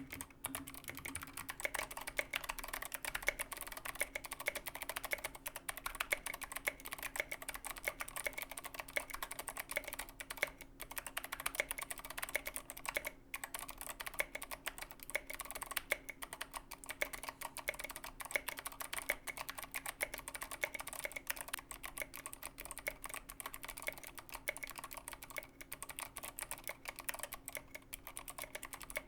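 Continuous fast typing on a GK61XS 60% mechanical keyboard with clicky Kailh Box Heavy Pale Blue switches and SA-profile keycaps: a dense, irregular stream of key clicks and keystrokes. A faint steady hum runs underneath.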